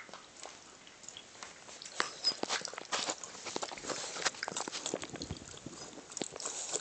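Small dog lapping at its bowl: a quick, irregular run of wet licks and small clicks that picks up about a second and a half in.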